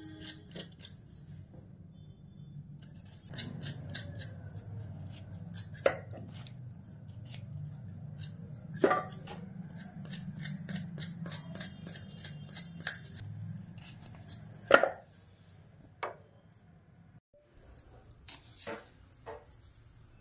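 Small kitchen knife cutting red potatoes held in the hand: a run of short crisp clicks as the blade goes through, with three louder knocks, over a steady low hum.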